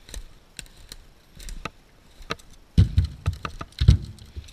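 Dry twigs and brush snapping underfoot, then two heavy wooden thuds about a second apart near the end as a firewood round carried in log tongs is dropped into the ATV trailer.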